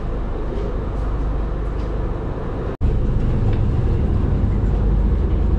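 Steady low drone of a glass-bottom tour boat's engines. It cuts out for an instant a little past halfway and comes back louder and deeper.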